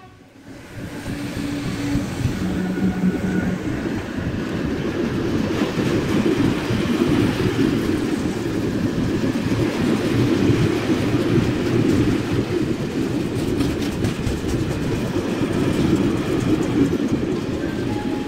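Freight train of tank wagons passing close by, hauled by a BB 27000 electric locomotive. The rumble builds over the first two seconds as the train arrives, with a brief steady tone early on, then carries on as a steady roll and rattle of wagon wheels on the rails.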